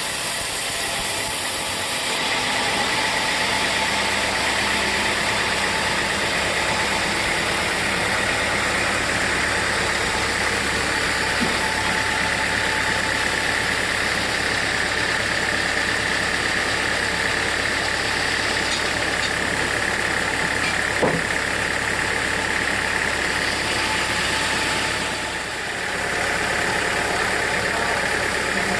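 Sawmill machinery running steadily: a continuous mechanical drone with a low hum and a steady higher whine. There is a single sharp click about two-thirds of the way through, and the sound dips briefly near the end.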